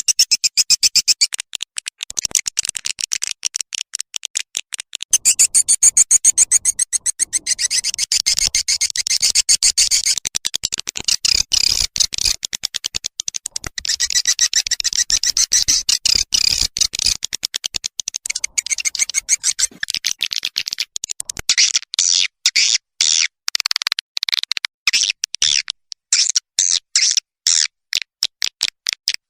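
Edible-nest swiftlets' calling sound, a lure recording for swiftlet houses: fast, high chirping twitters in stuttering runs with brief breaks.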